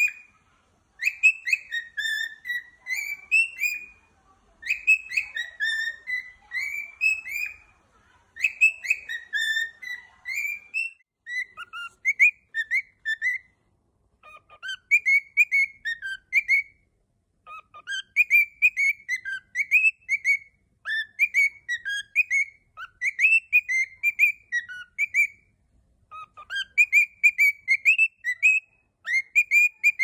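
Grey cockatiel whistling its song: phrase after phrase of short, up-and-down whistled notes, with brief pauses between phrases.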